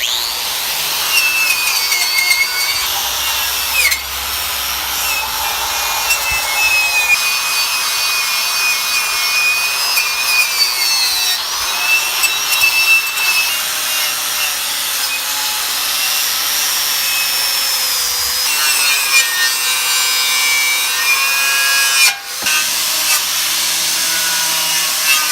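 Power tool abrading the rusty steel front bumper of a 1965 Jeep CJ5 to strip the rust: a continuous harsh rasp with a whine that dips and rises as the tool is pressed on. It breaks off briefly about 22 seconds in.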